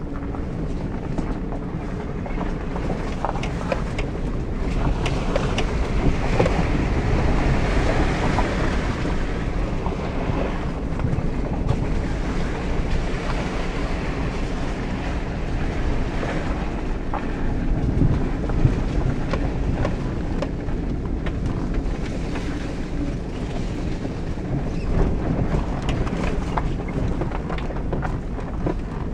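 Jeep Grand Cherokee WJ heard from inside the cabin while it drives a rough, muddy trail: a steady rumble of engine and tires with frequent knocks and rattles as the body and suspension go over bumps. A louder hissing stretch comes about six to ten seconds in.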